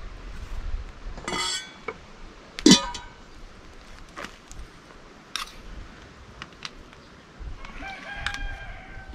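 A rooster crows near the end, one long drawn-out call. Before it, a few short sharp clinks and knocks, the loudest a little under three seconds in.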